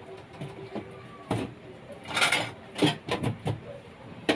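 Crockery being handled on a kitchen counter: a string of separate knocks and clatters, with a longer scraping sound about two seconds in.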